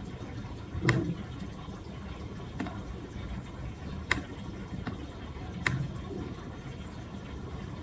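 Computer mouse clicking about five times, sharp single clicks a second or so apart, two of them with a soft low thump, over a steady background hiss.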